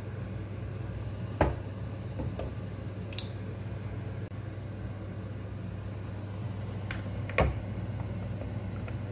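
Glass jars knocking as they are handled with a metal jar lifter and set down on a wooden cutting board: two sharp knocks several seconds apart, with a few lighter clicks, over a steady low hum.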